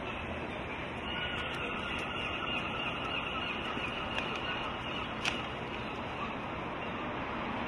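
Quiet city-centre ambience: a steady low rumble of distant traffic. A high, steady whine joins about a second in and stops about four seconds later with a sharp click.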